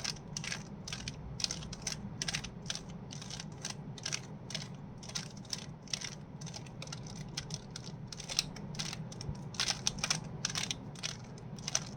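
A Rubik's cube being turned by hand: its plastic layers click and clatter in quick, irregular runs of turns, thicker near the end. These are the move sequences that twist the last two corners into place to finish the solve.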